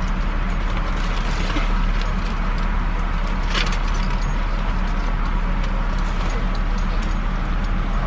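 Car engine idling, heard from inside the cabin: a steady low hum, with a few small clicks and a short burst of noise about three and a half seconds in.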